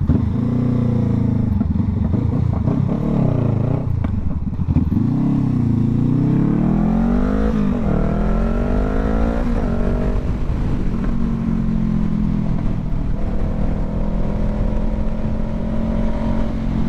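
Honda CBR500R's parallel-twin engine heard from the rider's seat, revving up through the gears with the pitch climbing and dropping at each shift, then holding a steady cruise for the last several seconds.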